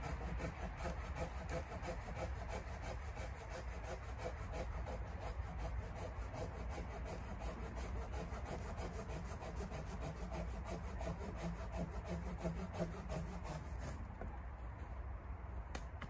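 Hand saw cutting through a pine branch in quick, even back-and-forth strokes, stopping about two seconds before the end.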